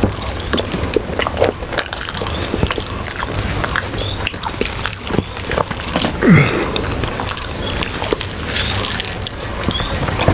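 Close-up eating sounds: people chewing and biting mouthfuls of khichuri and side dishes, with wet lip smacks and small irregular clicks of food and fingers.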